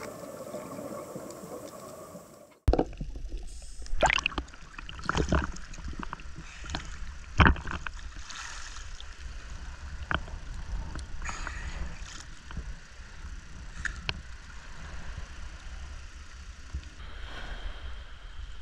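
Sea water sloshing and splashing around a diver floating at the surface, with a steady low rumble of wind on the microphone and a few sharper splashes. It starts suddenly a few seconds in, after a quiet stretch.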